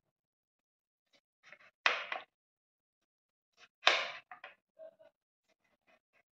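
Kitchen knife slicing rounds off a large cucumber over a plate: a crisp cut about every two seconds, the loudest near two and four seconds in, with fainter clicks in between.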